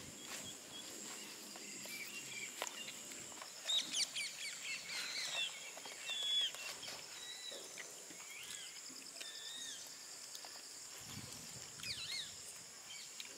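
Birds chirping in short, quick calls, busiest about four to six seconds in and again near the end, over a steady high insect drone.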